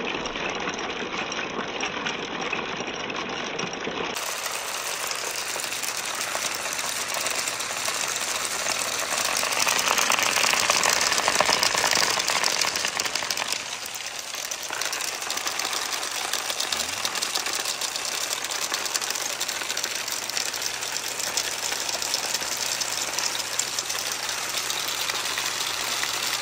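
Marbles rolling and rattling along a wooden water marble run, with water running down the course. The clatter grows louder about ten seconds in, then eases off.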